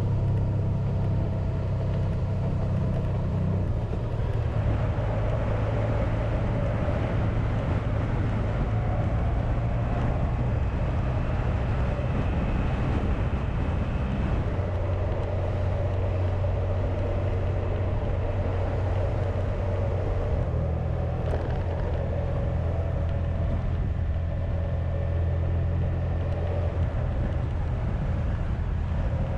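Honda VFR1200X Crosstourer's V4 engine running steadily on the move, with wind rush over the windshield-mounted camera. The engine note drops about four seconds in and picks up again about halfway through.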